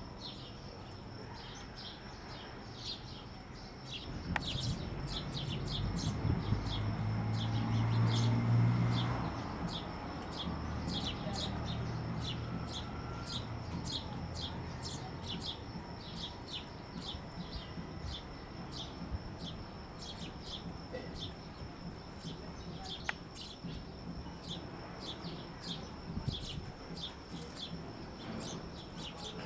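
Sparrows chirping continuously, with short sharp chirps coming two or three a second over a thin steady high whine. A low rumble swells in the background from about four seconds in and fades again by about twelve.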